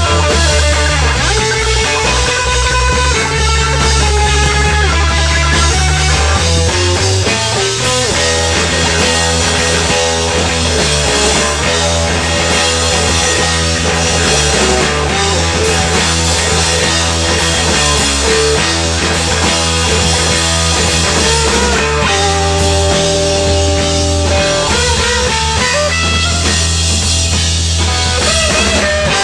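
Band playing live: guitar-led music over a steady bass line and drums.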